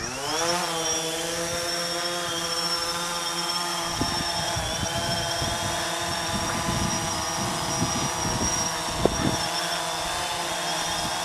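DJI Phantom 3 Standard quadcopter's motors and propellers spinning up with a rising whine at takeoff, then a steady, many-toned buzz as it lifts off and hovers. A low, uneven rumble joins from about four seconds in.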